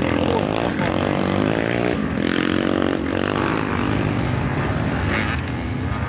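Several motocross dirt bikes revving as they climb a steep dirt hill, their engine pitch rising and falling repeatedly.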